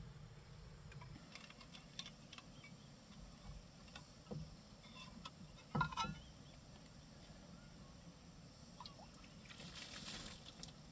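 Faint scattered taps and clicks, the loudest a quick double knock about six seconds in, then a short rustling hiss near the end.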